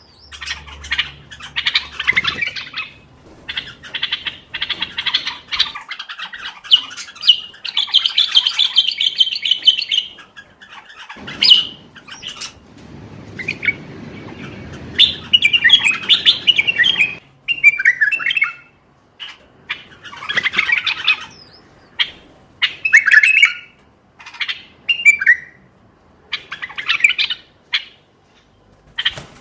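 Common bulbul singing: bursts of quick, chattering, warbling phrases separated by short pauses. A low rumble sits beneath the song for several seconds in the middle.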